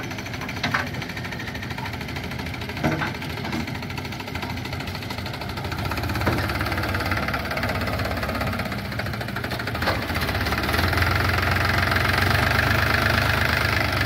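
Farmtrac tractor's diesel engine running, with a few sharp knocks in the first few seconds. The engine gets louder about six seconds in and louder again from about ten seconds, as the tractor pulls across loose soil.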